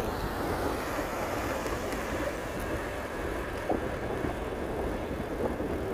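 Steady wind rushing over the microphone of a moving bicycle, an even low rumble with no distinct events.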